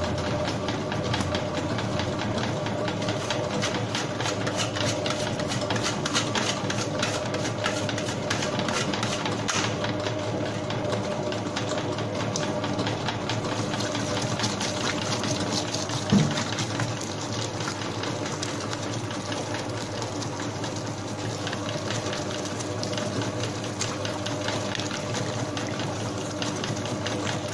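Commercial spiral dough mixer running: a steady motor hum with a rapid, even clatter as the spiral hook kneads a large batch of bread dough in its steel bowl. A single short knock comes about halfway through.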